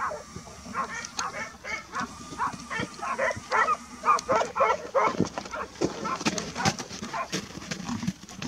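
Hunting dogs barking and yelping rapidly and without pause, the barks overlapping.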